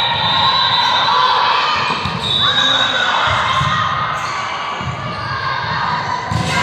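Indoor volleyball rally: the ball being struck during play, with a sharp hit near the end as it is attacked at the net, over players' and spectators' voices echoing around the gym.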